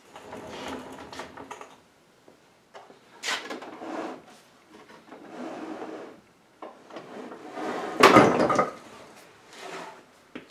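The top halves of an oak extension table sliding apart and together on its wooden extension slides: wooden scraping and rumbling in several pushes, with sharp knocks. The loudest knock and scrape comes about eight seconds in.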